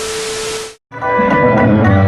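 A short burst of hiss with one steady tone, cut off abruptly, then after a brief gap a live band's music with heavy bass starts about a second in.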